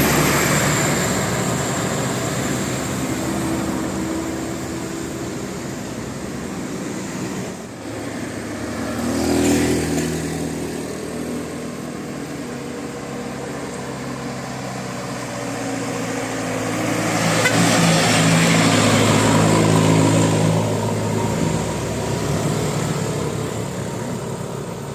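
Road traffic: vehicle engines and tyres passing close by, one after another. The passes are loudest about a third of the way in and again about three quarters of the way through, over a low engine hum.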